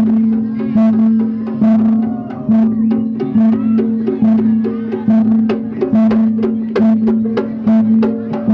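Live kuda kepang music from a Javanese percussion ensemble: many sharp drum strokes over a sustained low note that is restruck a little more than once a second, with higher pitched notes above.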